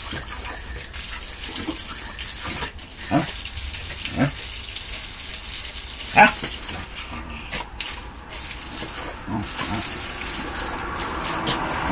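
Corgi barking at a water jet from a hose nozzle: repeated short, sharp barks at irregular intervals, the loudest about six seconds in, over the steady hiss of the spraying water.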